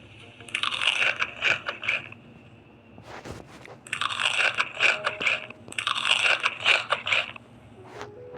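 Close-miked crunchy chewing: a person biting and crunching crisp food in three bouts of about one to one and a half seconds each, with short pauses between.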